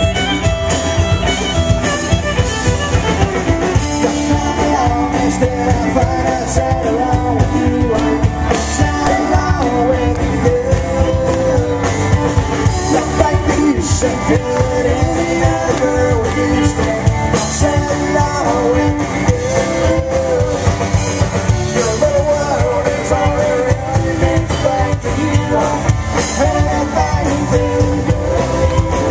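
Loud live band music, a rock-style song with fiddle and guitar over a steady full low end.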